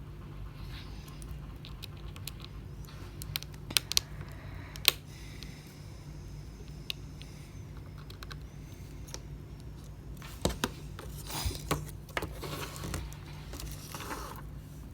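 Small sharp clicks and taps of repair tools and tiny parts being handled on an opened iPhone XR: a few ticks about three to five seconds in and a cluster about ten to thirteen seconds in, over a steady low hum.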